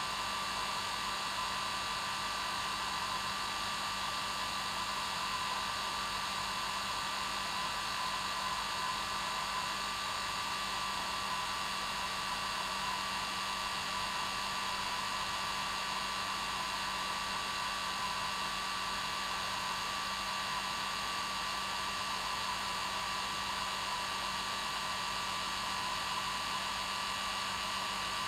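Electric hair dryer running at a steady speed: an even rush of air with a constant whine from its motor and fan, unchanging throughout.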